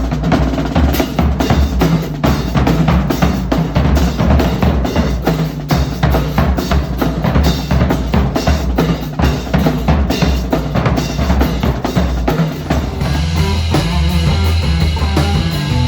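Drums playing a busy rhythm, with bass drum and snare strikes in quick succession. About thirteen seconds in, sustained pitched instruments join the drumming.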